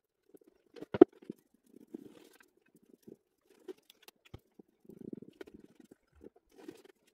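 Foam sponge dabbing and rubbing wet glue across a wooden board in short, soft squelchy patches, with scattered small clicks and taps from handling, the sharpest about a second in.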